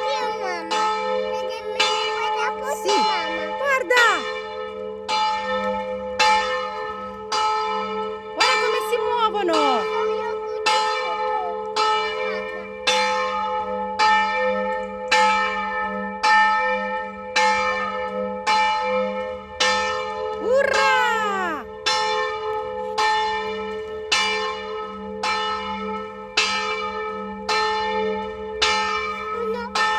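Church bells ringing, struck evenly about once a second, each stroke ringing on into the next.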